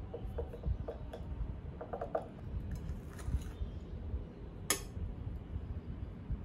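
A long metal spoon clinking lightly against a small glass cup as dipping sauce is stirred, a run of small clinks, then cutlery on a ceramic plate with one sharp clink a little past the middle.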